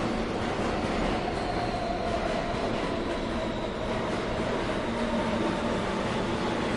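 New York City subway train running on the tracks: a steady rumble with a faint whine that sinks slightly in pitch.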